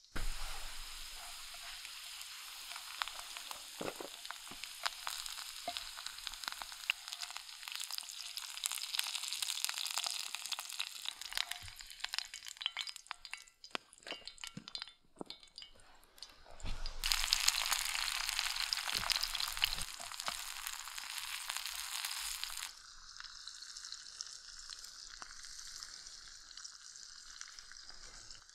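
Food sizzling and spitting in a pan over a campfire: a steady hiss with many small crackles, louder for a few seconds past the middle and softer near the end.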